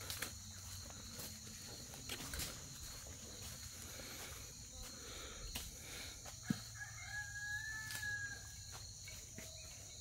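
A rooster crowing once, faint, one long call a little past halfway, over a steady high drone of insects and scattered soft footsteps in dry leaf litter.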